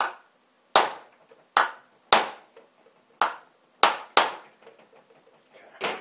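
Claw hammer tapping a metal staple into a wooden board, about eight sharp strikes at uneven spacing, each with a short ring.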